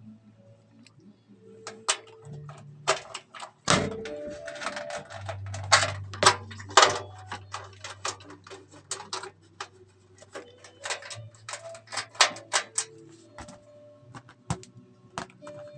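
Irregular clicks and knocks of screws, a screwdriver and metal parts being handled while a PC is assembled into its case, busiest in the middle, over a steady low hum.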